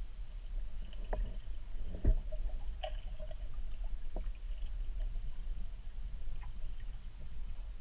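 Muffled underwater river sound heard from a submerged camera: a steady low rumble of current with scattered small clicks and knocks, one louder knock about two seconds in.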